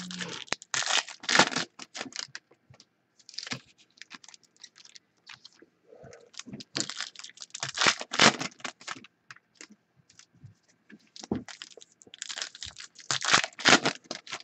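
Foil wrapper of a trading-card pack being torn open and crinkled by hand, in several bursts of crackling and tearing with short pauses between.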